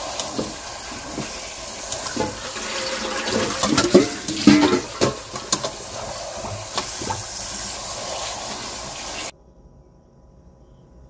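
Cold tap water running onto plum tomatoes in a stainless steel colander. The splashing is loudest a few seconds in, as a hand turns the tomatoes under the stream. The water stops abruptly near the end.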